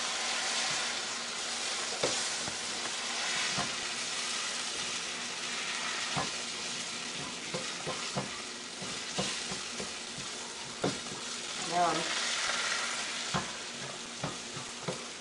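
Eggs and vegetables sizzling steadily in a nonstick frying pan, broken by frequent light taps and scrapes of a slotted spatula pushing the setting omelet in toward the middle.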